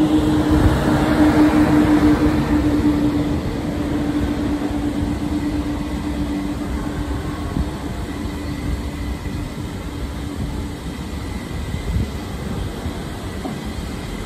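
ÖBB Railjet passenger train running past: a rumble of wheels on the rails with a steady hum, loudest in the first few seconds and slowly fading. The hum stops about eleven seconds in.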